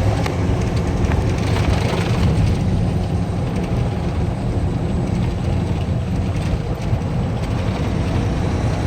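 Steady low rumble with a hiss above it and no distinct events, like vehicle or wind noise.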